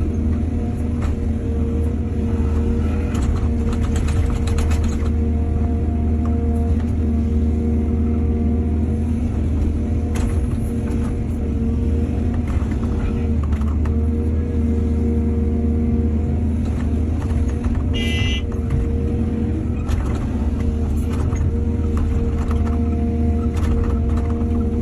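Excavator's diesel engine running steadily under load while it digs and loads soil, with clanks and knocks from the bucket and dirt now and then. A brief high ringing sound comes about eighteen seconds in.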